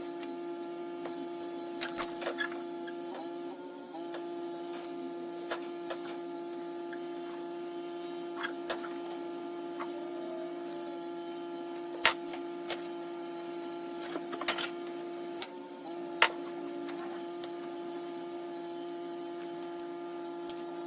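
A steady machine hum with a few short breaks, with scattered clicks and light taps over it.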